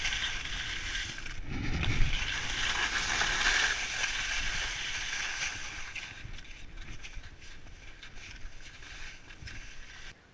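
Blizzard skis sliding and scraping over packed snow in a steady hissing rush, with a low thump about two seconds in. The rush is loudest in the first few seconds, fades after the middle and cuts off abruptly near the end.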